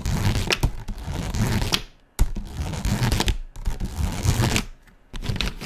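Felt-tip marker scribbling back and forth on paper while colouring in, in runs of quick strokes broken by two short pauses, about two seconds and five seconds in.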